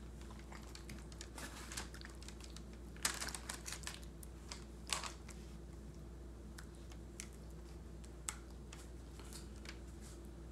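Faint crinkling of parchment paper and scattered light clicks as hands work the marinated raw whole chickens lying on it, with a small cluster of clicks about three seconds in and another about five seconds in. A steady low hum runs underneath.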